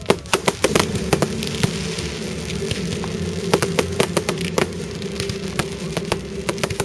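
Fireworks display: aerial shells bursting in a rapid volley of sharp bangs through the first second or so, then further bangs and crackle at scattered intervals.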